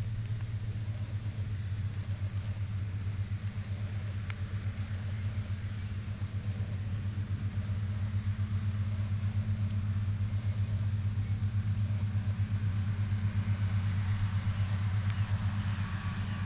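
A steady, low engine-like hum with a quick, even pulsing beat, like a motor idling.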